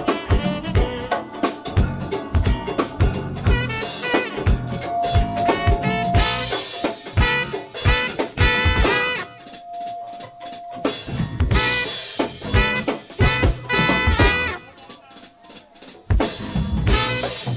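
Instrumental go-go music: a drum kit and percussion keep a busy steady beat under brass stabs. The band drops back twice in the second half, leaving a held note, before the full beat comes back near the end.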